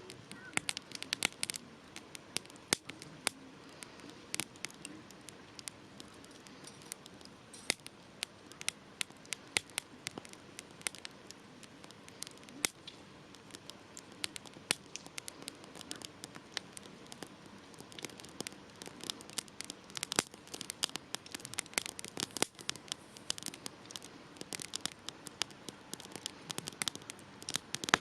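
Wood campfire crackling: sharp, irregular pops and snaps, sometimes in quick clusters, over a soft steady hiss of burning.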